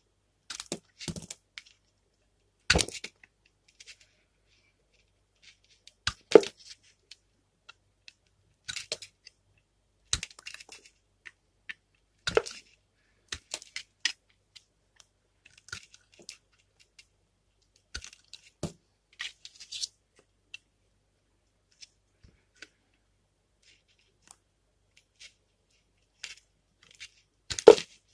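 Utility knife blade cutting into a bar of soap, each stroke a short cracking cut as pieces break away, one every second or two with quiet gaps between. The loudest cuts come about six seconds in and near the end.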